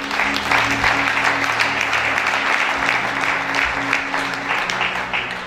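Audience applauding over background music with long held tones. The clapping swells just after the start and thins near the end.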